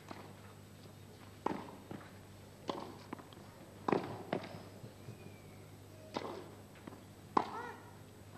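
Tennis rally on a clay court: racket strikes on the ball, each a sharp pop, coming about a second or two apart, with fainter ticks between them.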